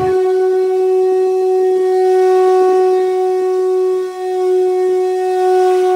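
A conch shell (shankh) blown in one long, steady note that dips briefly about four seconds in.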